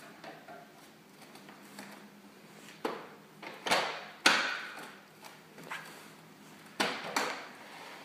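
Sharp hard-plastic knocks and clicks, about five in all, as a lithium battery pack is handled and clicked into a Hoover Air cordless vacuum, which is then set upright. The loudest knock comes a little after four seconds in.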